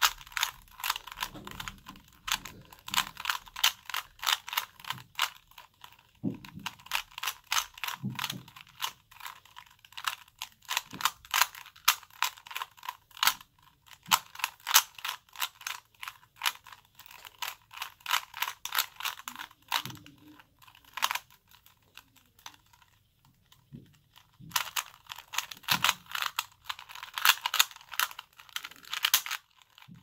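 Rapid plastic clicking and clacking of a 3x3 Rubik's cube as its layers are turned by hand in quick runs of moves, with a pause of about three seconds past the middle before the turning picks up again.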